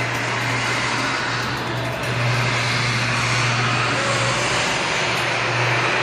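Chain-drive garage door opener running, its motor humming steadily while the chain drive hauls the door up.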